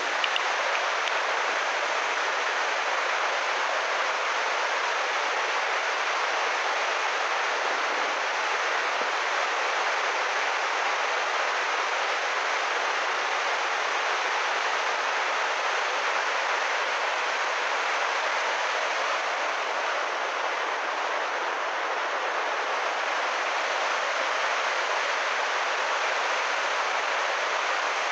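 Muddy floodwater rushing in a torrent past an undercut road embankment: a steady, unbroken rushing noise.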